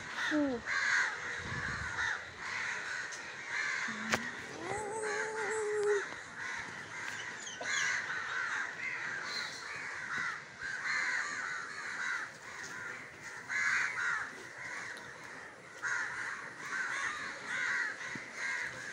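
A large flock of crows cawing continuously, many harsh calls overlapping one another.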